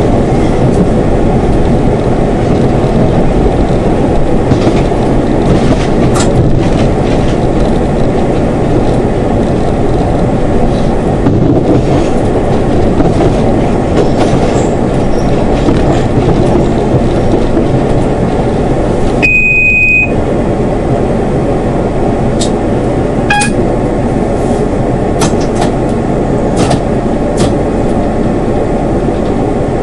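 Class 171 Turbostar diesel multiple unit under way, heard from the driving cab: steady engine and running noise with the rumble of wheels on rail. About two-thirds of the way through there is a brief high beep, and a few sharp clicks follow near the end.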